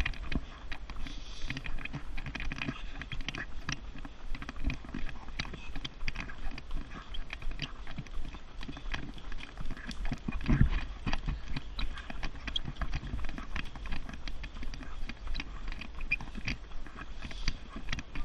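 Running footsteps on a paved path, a quick steady rhythm of about three footfalls a second, over a steady low rumble. There is a louder thump about ten seconds in.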